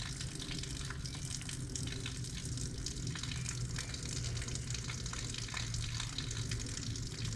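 Fishing reel being cranked steadily to retrieve a lipless crankbait: a steady low hum with a dense run of fine ticking.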